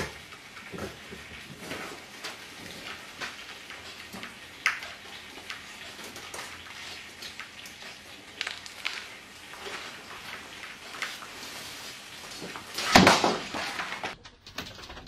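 A cat climbing a metal wire clothes-drying rack, the rack rattling and clicking under it, then the rack falling over with a loud clatter near the end.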